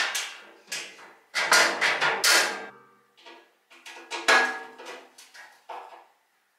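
Sheet-metal stand of an HBM 128 metal bandsaw being bolted together: metal parts and tools clank and rattle against the hollow cabinet. The sharp knocks come in quick bunches, about a second and a half in and again around four seconds in, each with a short metallic ring.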